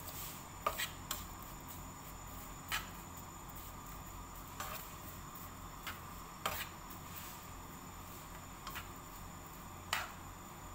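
A cooking utensil knocking against a frying pan about eight times at irregular intervals while minced onion is stirred in oil.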